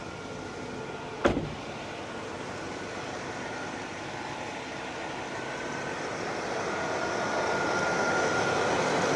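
Air conditioning blower of a 1996 Chevrolet Impala SS blowing cold air in the cabin while the car runs: a steady rushing that grows slowly louder, with one sharp click about a second in.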